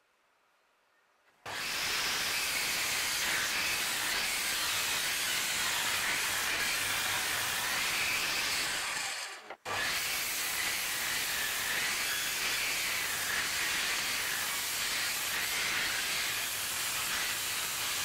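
Table saw cutting a long scarf joint along a thick wooden mast timber: near silence at first, then a loud, steady noise starting about a second and a half in. It drops out for an instant just after halfway and then runs on.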